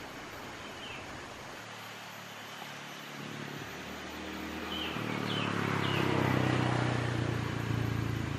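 An engine running steadily, starting up about a second and a half in and growing louder through the second half, with a few short bird chirps over it.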